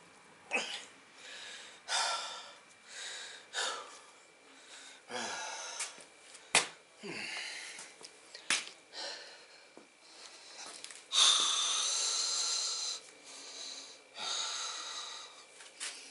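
A man breathing hard and forcefully, with strained, wheezing exhales from the effort of bending a 1/4-20 steel bolt by hand. The loudest is a long hard exhale about eleven seconds in. Two sharp clicks come near the middle.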